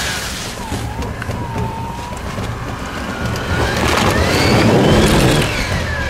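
A 4x4 off-road vehicle's engine revving under load while crawling over logs, its pitch gliding up and down and its loudness building to a peak about four to five seconds in.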